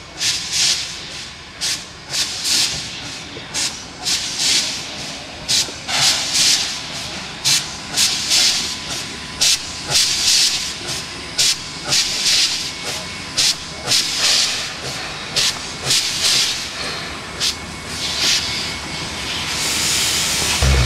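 Two steam locomotives, NSWGR 59 class 5917 and 32 class 3237, working together at low speed: a quick, somewhat uneven series of chuffs, about one and a half to two a second from the two engines' exhausts, with steam hissing from the cylinder drain cocks. Near the end a louder steady hiss builds as the engines draw close.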